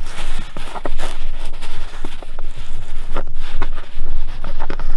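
Scratchy rubbing of fingers on cloth car headliner fabric, with irregular small clicks, as a clear-headed twist pin is pushed into the sagging headlining and twisted into the board underneath.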